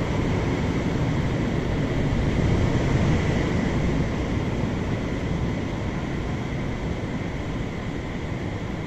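Automatic rollover car wash's rotating brushes and gantry running over the car, heard from inside the cabin: a steady rumble, loudest about three seconds in and slowly easing off.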